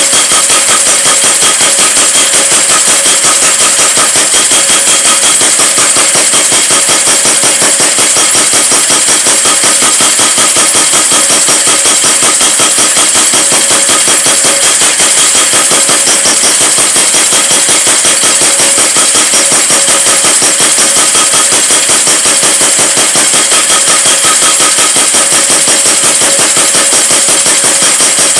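Mechanical power hammer striking hot metal in a rapid, even rhythm, each blow ringing, running without a break.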